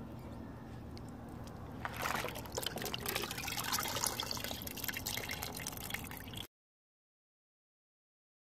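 Brine splashing, dripping and trickling as a whole raw turkey is lifted out of a bucket of brine by hand, growing louder about two seconds in. The sound cuts off suddenly to dead silence about six and a half seconds in.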